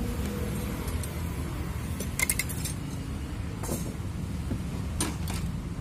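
Small steel parts clinking as a bendix lock sleeve is fitted onto the shaft and pinion of an auto-rickshaw starter motor's bendix drive. A quick cluster of light metallic clicks comes about two seconds in and a few single clicks follow later, over a steady low background rumble.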